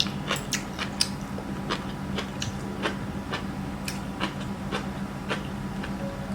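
Close-up chewing of crunchy food, a quick run of sharp, crisp crunches at about three a second.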